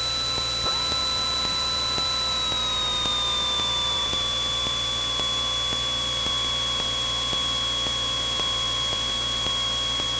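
Cessna 172N's four-cylinder Lycoming engine and propeller heard from inside the cabin in flight: a steady drone and hiss with a high, steady whine. The pitch dips slightly about two and a half seconds in.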